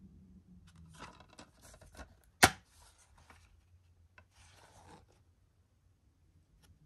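A plastic DVD case being handled, with scraping and rustling and one loud, sharp plastic snap about two and a half seconds in, then a shorter rustle.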